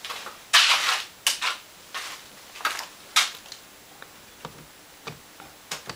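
Irregular sharp clicks and knocks, about ten in all, beginning with a longer rustling scrape about half a second in: small equipment and leads being handled on a workbench.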